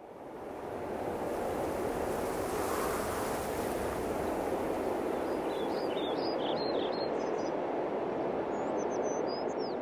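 Outdoor nature ambience fading in: a steady rushing noise like wind through vegetation, with small birds chirping in quick, high bursts from about halfway through.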